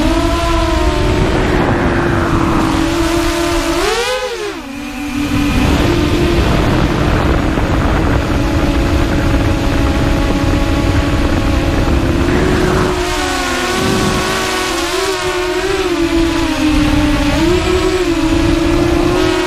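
FPV racing quadcopter's electric motors and propellers whining steadily under throttle, the pitch swinging sharply up and down about four seconds in and wavering again later as the throttle changes, with rushing wind noise on the onboard camera's microphone.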